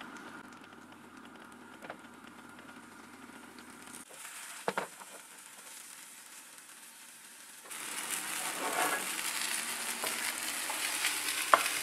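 Floured kefta patties frying in a little oil in a non-stick pan: a faint sizzle at first, then clearly louder sizzling from about two-thirds in. A sharp knock sounds a little before the middle.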